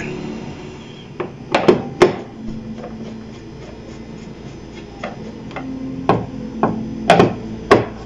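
Hard knocks and taps as a Samsung 32-inch LCD TV is handled and laid face down and a screwdriver is set into the screws of its plastic back cover: about ten sharp strokes, a cluster near the start and another in the second half.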